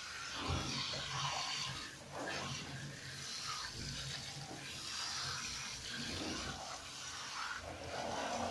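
Water spraying from a handheld shower head onto a cat's wet fur and splashing into the bathtub during rinsing. The rush of water rises and falls as the spray moves over the fur.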